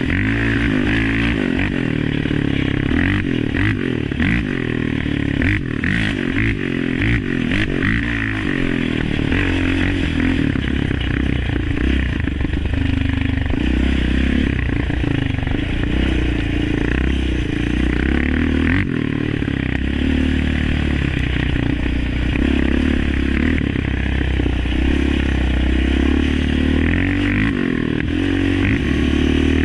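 Yamaha Raptor 700 ATV's single-cylinder four-stroke engine through an aftermarket Alba Racing full exhaust, revving up and down on a trail ride, with a few sharp knocks and scrapes from the machine over the ground.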